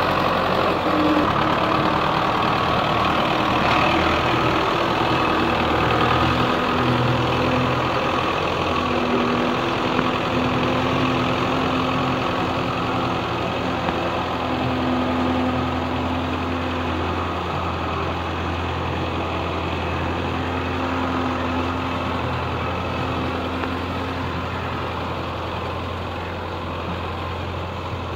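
Belarus tractor's diesel engine running steadily as it drags a rear levelling blade through a flooded, muddy field. The engine grows gradually fainter over the last several seconds as the tractor pulls away.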